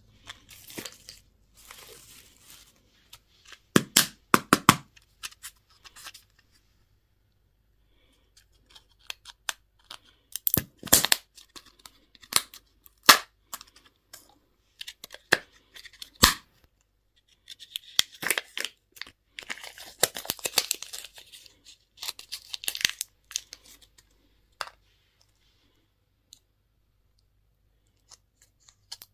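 Candy and toy packaging being torn open and handled: scattered sharp snaps and clicks, with a longer stretch of tearing and crinkling a little past the middle.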